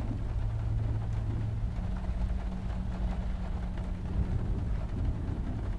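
Low, dark rumbling drone of a film soundtrack, with a deep held tone that steps up to a higher held tone about two seconds in and fades out a couple of seconds later.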